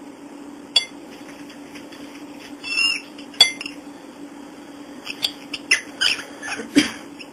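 Young cockatiel pecking at and knocking small plastic toys against a ceramic plate: irregular clinks and knocks, most of them in the second half, with one short squeak about three seconds in.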